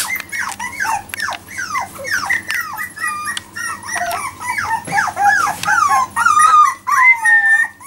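Four-week-old Jack Russell Terrier puppies whining and squeaking: a rapid string of short, high, falling cries, several a second, with a few longer held whines near the end.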